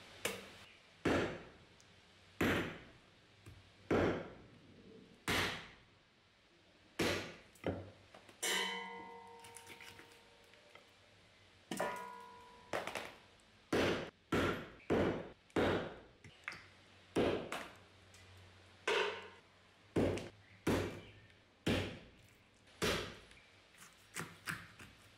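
Hatchet chopping through raw beef legs and hooves on a wooden stump chopping block: a long run of sharp, heavy thunks, about one every second and a half at first, then quicker, nearly two a second, in the second half. A couple of the blows leave a short metallic ring.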